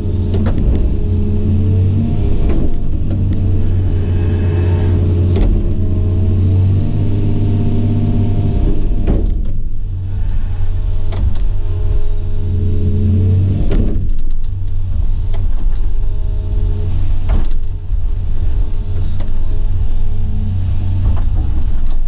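An excavator's diesel engine running steadily under working load, with its note dipping twice as the machine takes up load. A few short knocks of the machine at work sound over it.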